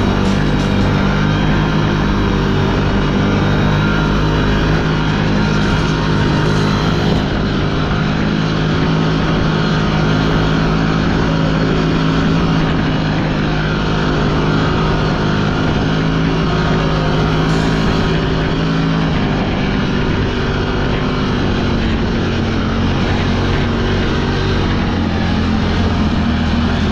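Engine of a 4x4 vehicle running at a steady speed, with a drone that drops to a lower pitch about two-thirds of the way through.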